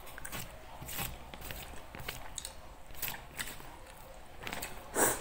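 Mukbang eating sounds: chewing and wet mouth clicks while eating nasi Padang with rendang, as a run of short irregular clicks, with one louder brief crackle near the end.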